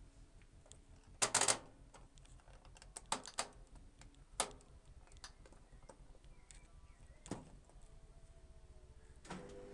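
Program selector knob of a Zanussi FL522-CN washing machine being turned, clicking sharply through its detent positions in a series of separate clicks. Near the end the machine starts up with a steady hum.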